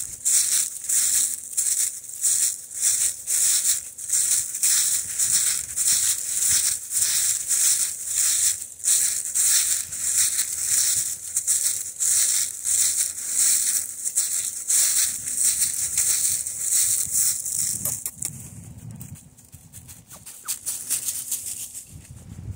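Footsteps crunching through thick dry fallen leaves at a steady walking pace, about two steps a second. About 18 seconds in the steps stop, leaving quieter, uneven rustling in the leaves.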